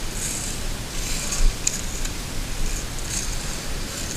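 Footsteps and a metal detector's coil rustling and crunching through dry leaf litter, in crisp irregular swishes, with a sharper snap about a second and a half in.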